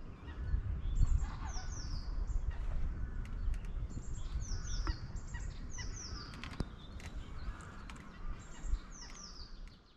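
Birds calling: short high notes that fall in pitch, repeated in runs of two or three, over wind rumbling on the microphone. A sharp click sounds about six and a half seconds in.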